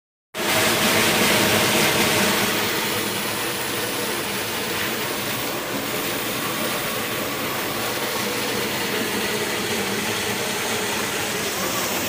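Waterfall: a steady rush of water falling into a pool, a little louder for the first couple of seconds.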